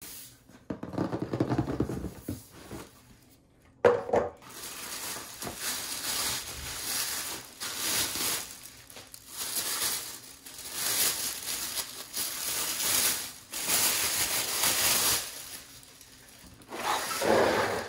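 Fingers tapping and scratching on the lid of a boot box, then a sharp knock about four seconds in. After that, a clear plastic bag crinkles and rustles for several seconds as the boots are pulled out and unwrapped.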